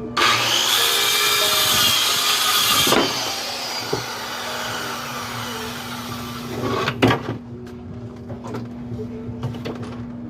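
An electric power saw starts suddenly and cuts through wood with a loud whine for about three seconds, then winds down over the next few seconds. A sharp thump comes about seven seconds in.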